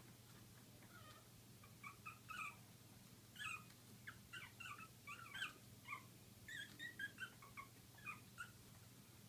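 Young puppies crying in a run of short, high-pitched squeaks in quick succession, starting about two seconds in and stopping shortly before the end.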